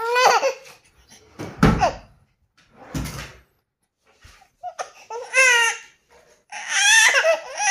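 Infant crying in wavering wails, a brief cry at the start, another about five seconds in, and a longer one near the end, with two dull thumps in the pause between.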